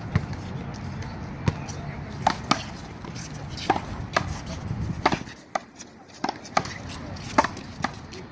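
Handball rally: sharp smacks of the ball being hit by hand and striking the wall and court, about a dozen at irregular intervals, some with a short ring.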